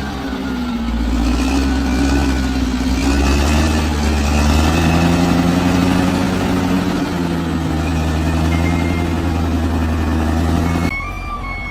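Large bulldozer's diesel engine running under load, its pitch rising and falling as it works. About a second before the end it cuts abruptly to a quieter sound with steady high tones.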